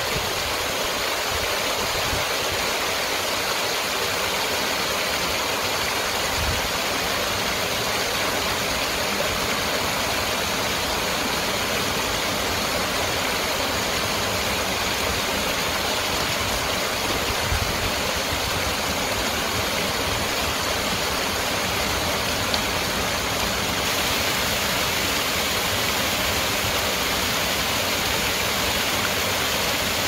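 Small waterfall pouring over stone ledges into a pool: steady rushing, splashing water.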